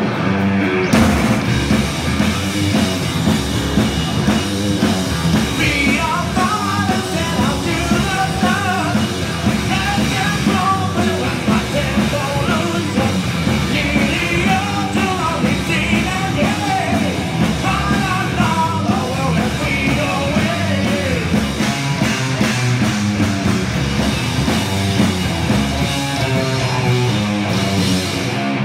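Live rock band playing loudly, with distorted electric guitars and a drum kit. A vocalist sings or shouts over it through much of the middle stretch.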